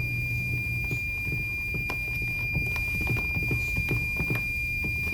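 Multimeter continuity buzzer giving one unbroken high beep while the iron's thermostat dial is turned, with small clicks and knocks of handling. The circuit never breaks, a sign of the defective thermostat that keeps the iron heating constantly.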